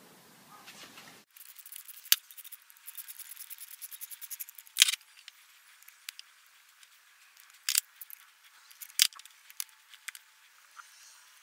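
Light clicks and sharp taps of hands and small hardware on an outboard's ignition wiring: a quick run of small clicks for a few seconds, then several separate sharp clicks.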